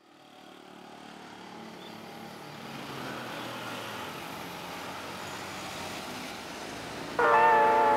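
Steady road-traffic noise fading in over the first few seconds. About seven seconds in, a loud sustained musical chord cuts in over it.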